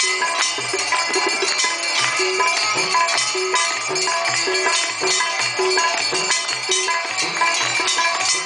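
Hindu aarti music: hand bells ringing without a break over rhythmic percussion and a low melody in stepped notes.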